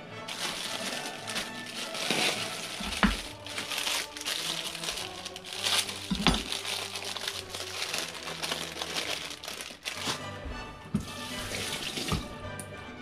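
Water running from a kitchen tap into a sink, starting and stopping in several spells, with a few sharp knocks, over background music.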